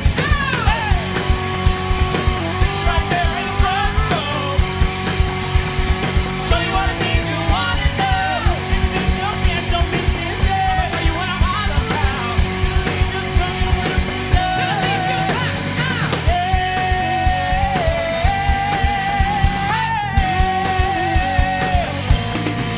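Live band playing: a steady drum beat with bass and guitar, and a lead melody of long held notes over it.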